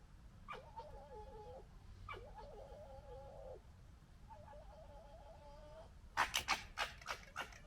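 Red foxes gekkering: three stuttering, warbling chatter calls, each one to one and a half seconds long, the sound of squabbling over rank. Near the end comes a rapid run of loud, sharp clicking sounds.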